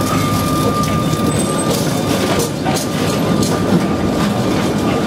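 Electric tram of the Sóller tramway with its wooden carriages rolling past on street rails, wheels clicking over the rail joints, with a thin steady whine.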